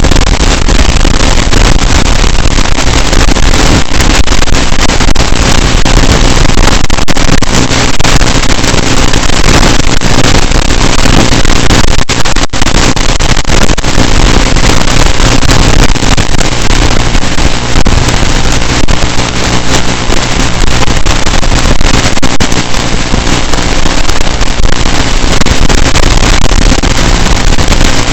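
Tiny Whoop micro quadcopter's motors and propellers buzzing in flight, picked up close by its onboard camera microphone as a loud, steady, distorted noise.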